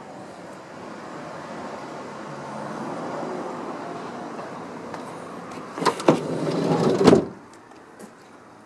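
A minivan's sliding side door being pulled shut: a couple of sharp clicks about six seconds in, a short rolling rush, then a loud slam as it latches about a second later, over a steady background rush.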